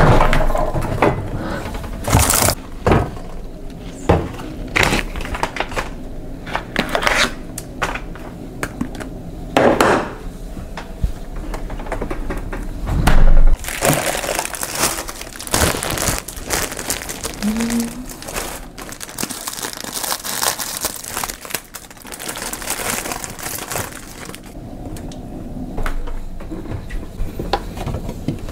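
Kitchen handling sounds during food preparation: plastic packaging crinkling and rustling, with scattered knocks and clatter of dishes and utensils.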